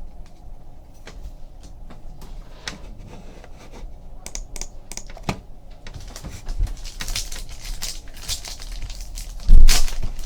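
Trading cards and foil pack wrappers being handled: light clicks and flicks, busier crisp rustling from about six seconds in, and one loud thump near the end.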